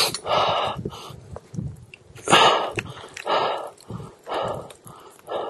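A person breathing hard, with loud heavy breaths about once a second.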